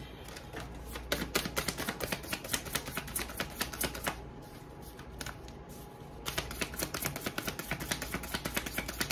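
A deck of cards shuffled by hand, a quick run of crisp flicking clicks. It comes in two spells, the first about three seconds long, then a pause of about two seconds before the shuffling starts again.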